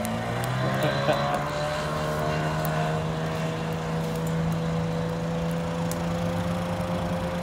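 An engine running at a steady speed, its pitch rising slightly over the first couple of seconds and then holding even.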